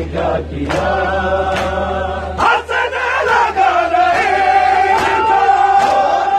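Large crowd of men chanting a noha (Shia mourning lament) together, with sharp slaps of hands striking bare chests in matam every second or so. From about four seconds in a single long note is held to the end.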